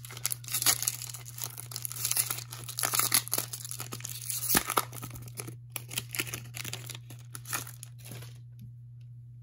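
The wrapper of a football trading card pack being torn open and crinkled by hand, in dense irregular crackles that die away about eight seconds in. A steady low hum runs underneath.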